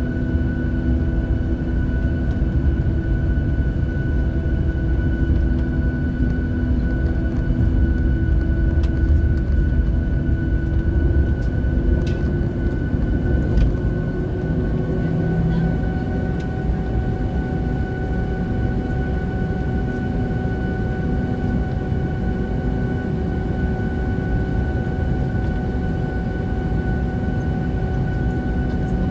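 Cabin noise of a Boeing 737-700 taxiing, heard inside the cabin over the wing: its CFM56-7B engines' steady whine at taxi power over a low rumble. About halfway through, the engine tones rise slightly in pitch.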